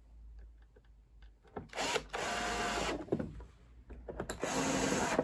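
Small electric screwdriver running in two short bursts of about a second each, driving screws back into a sandwich maker's casing, with a few light clicks between.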